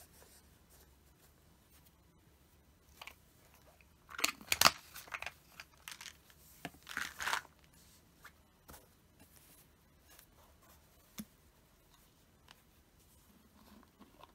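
Hands moving plastic bottles and softgel capsules on a tabletop. There are two short bursts of rustling and clatter, about four and seven seconds in, the first the louder, and a few light taps in between.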